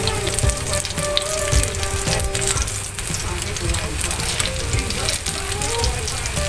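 Skewered saba banana bites frying in shallow oil in a metal pan, a steady sizzle and crackle. Metal tongs turning the skewers make occasional light knocks against the pan.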